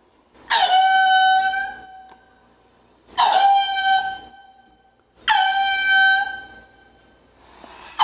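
An animal calling three times, each call a loud, steady pitched note about a second long that begins with a sharp drop in pitch, the calls coming about two and a half seconds apart.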